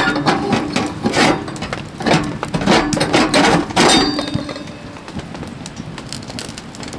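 Metal clinking and scraping as a steel lid-lifter hooks and raises the round cooktop plate of a wood-burning stove, a quick run of clanks and knocks; it goes quieter about four seconds in once the plate is lifted clear.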